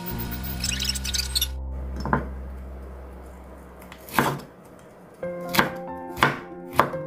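Santoku kitchen knife cutting cucumber into thin strips on a bamboo cutting board: five separate, unevenly spaced knocks of the blade striking the board.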